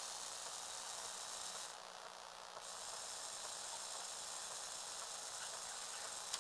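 Small electric motor running a Lego Technic gear train that swings the box's flaps, a steady high whirr. It stops for about a second near two seconds in, then starts again, with one sharp click just before the end.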